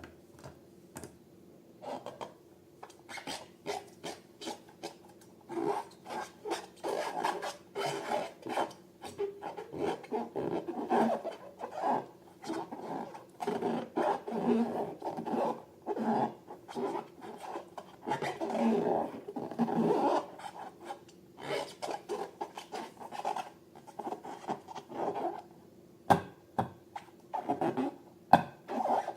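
Slime and balloons being handled for slime-making: many short, irregular rubbing and scraping strokes, several a second. They begin about two seconds in and are busiest through the middle.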